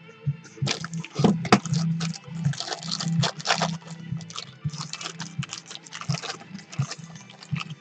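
Thin clear plastic bag of heat-shrink tubing crinkling as it is handled and lifted away, an irregular run of crackles, over a steady low hum.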